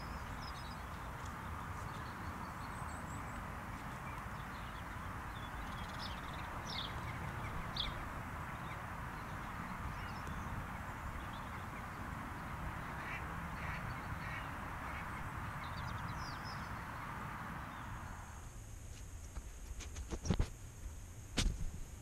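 Birds calling over a steady wash of background noise. About eighteen seconds in, the sound switches to a collar-mounted ferret camera in the burrow: a faint high whine and a couple of sharp knocks as the ferret moves.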